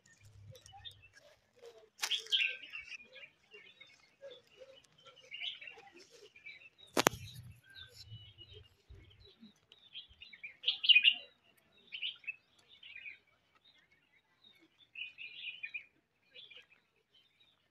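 Birds chirping in short, scattered calls, with one sharp click about seven seconds in.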